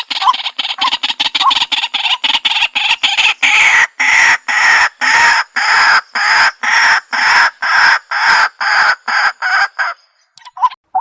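White-breasted waterhen calling: a fast series of short call notes, several a second, that slows into longer notes about two a second and stops shortly before the end.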